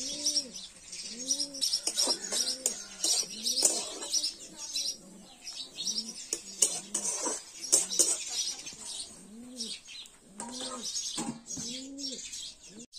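Pigeons cooing over and over, each coo a short low rising-and-falling note, with small birds chirping high above them. Several sharp clinks of metal cookware cut in, the loudest about eight seconds in.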